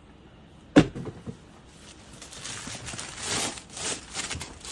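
A single sharp knock just under a second in, then the white tissue paper wrapping in a shoebox rustling and crinkling as it is folded back from the shoes.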